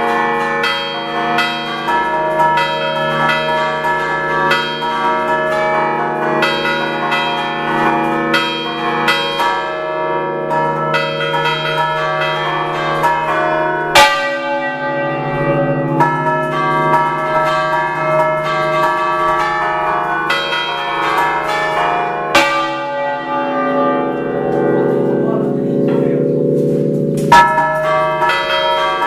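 A concerto of six bronze church bells in D, cast by Picasso of Recco, rung by hand in the Ligurian 'a ducale' style: quick overlapping strokes ring out in a running melodic pattern. A heavy stroke stands out about halfway through, another a few seconds later, and a third near the end.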